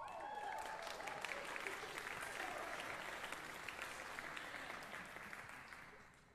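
Concert audience applauding, dying away over the last second or so.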